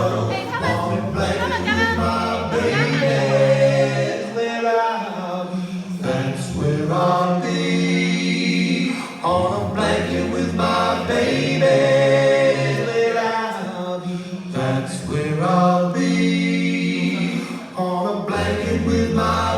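An a cappella vocal group singing in close harmony, carried by a deep bass voice that holds low notes under the higher parts. It is a recorded track played back over the hall's loudspeaker system as a test.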